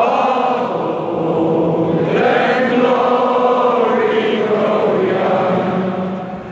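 Large arena crowd singing together, many voices holding long notes in a chant-like melody.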